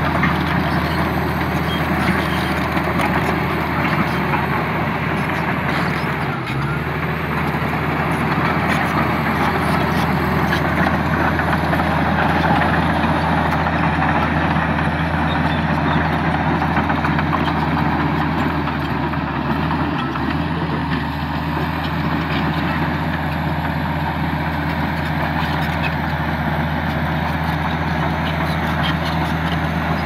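Komatsu D85E-SS crawler bulldozer's six-cylinder diesel engine running steadily under load as the dozer pushes soil with its blade.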